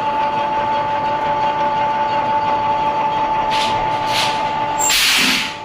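Wire stripping machine running with a steady motor whine. Near the end come two short bursts of noise, then a louder burst about five seconds in as the whine stops.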